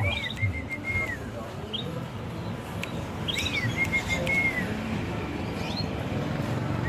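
Zebra dove (perkutut, Bangkok strain) singing its cooing phrase twice, about three seconds apart: each a short upward note followed by a quick run of even notes that drop off at the end. A few short high chirps come in between.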